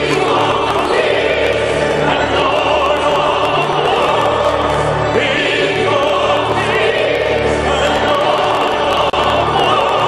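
A group of men and women singing together in chorus, with a steady low accompaniment underneath; the sound drops out for an instant about nine seconds in.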